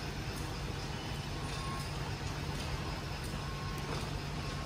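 Steady machinery noise of a can-packing line: conveyors and fans running with a constant low hum, a few faint clicks and brief thin whines on top.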